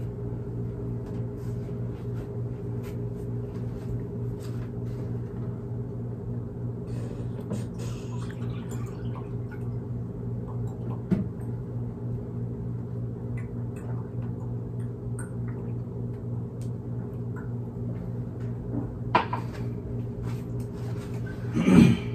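A steady low mechanical hum with several pitches, like a motor or engine running without change. Light clicks and rustles, a sharper knock about halfway through, and a louder knock and rustle near the end.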